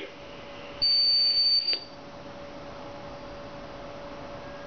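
A Radio Shack Robie Sr. robot plays a single high-pitched beep, held steady for about a second and ending with a click, a command tone from its cassette in programmed mode. A faint steady hum runs underneath.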